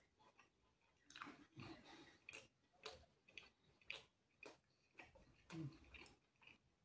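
Faint sounds of a man chewing a mouthful of meat pizza: soft, irregular wet clicks and smacks of the mouth, roughly one or two a second.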